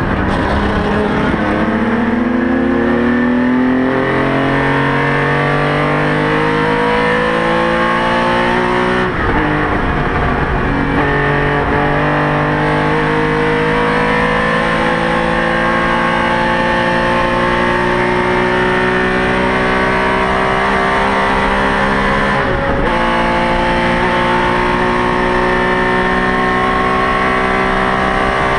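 Porsche 911 RSR's air-cooled flat-six racing engine heard from inside the car, pulling hard with its note climbing steadily. There are two gear changes, about nine seconds in and again about twenty-three seconds in, each a brief break before the pitch climbs again.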